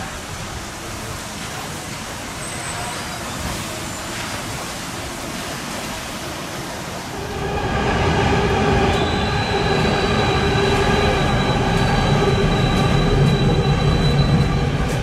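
Steady city background noise. About seven seconds in, an Amsterdam GVB tram comes on louder as it approaches round a curve: a rumble with a steady, multi-toned whine from the tram's wheels and running gear.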